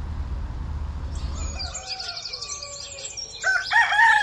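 A low rumble stops about a second and a half in. Then birds are chirping and calling, with one louder call near the end.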